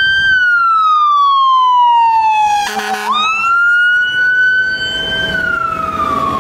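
Fire engine's electronic siren wailing, its pitch sliding slowly up and down, with a short horn blast about three seconds in. A low engine rumble runs underneath as the truck pulls away.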